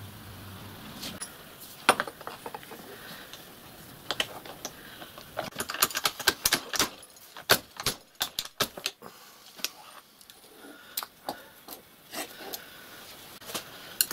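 Steel hand tools and a cast-iron block clinking and clattering as they are handled on a milling machine's vise table: an irregular run of sharp metallic clinks, thickest in the middle.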